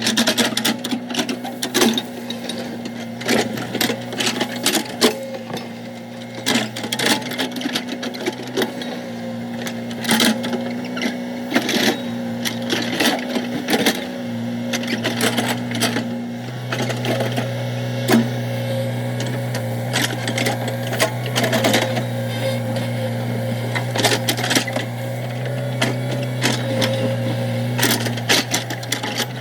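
Komatsu excavator's diesel engine running steadily under a stream of sharp knocks and clatter from the machine at work. The engine note gets louder about halfway through.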